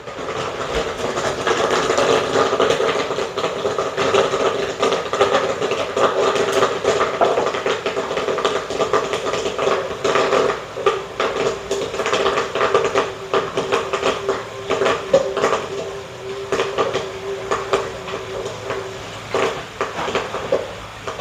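Popcorn machine at work: the 12-volt stirrer motor in the metal popping pot hums steadily while corn pops and kernels clatter against the pot. The hum stops near the end.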